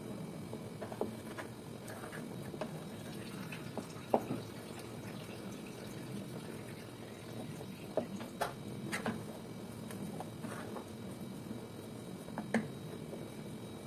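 Wooden spoon stirring a thick milk, condensed-milk and cream mixture as it cooks in a saucepan, a steady wet sloshing with scattered sharp clicks of the spoon against the pan, the loudest about four seconds in, around eight to nine seconds and near the end.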